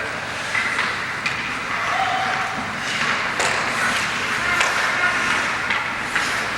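Ice hockey play: scattered sharp clacks and knocks of sticks and puck over a steady rink hubbub, with a few brief shouts.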